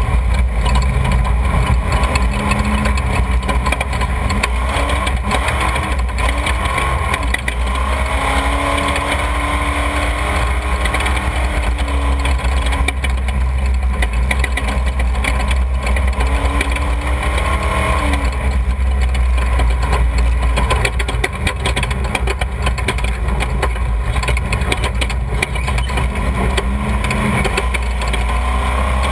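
Off-road desert race vehicle's engine running under way, heard from an onboard camera at the rear, its pitch rising and falling several times with the throttle over a heavy low rumble. Frequent short knocks and rattles run through it.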